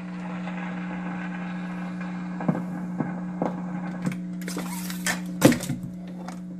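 Automatic record changer of an RCA 331 radio-phonograph cycling between 78 rpm records: a run of mechanical clicks and clunks as the tonearm lifts away and the next record drops, the loudest clunk about five and a half seconds in. A steady electrical hum from the set runs underneath.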